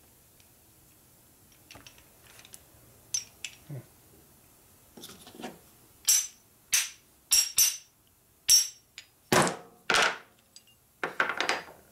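Metal engine parts clinking and knocking against each other as they are handled. A few light taps come first, then about eight loud, sharp clinks in the second half, some ringing briefly.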